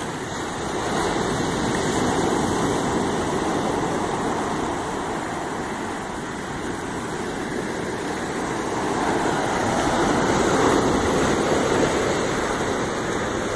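Ocean surf washing up the beach in a steady rush that swells and eases, louder about two seconds in and again around ten seconds in.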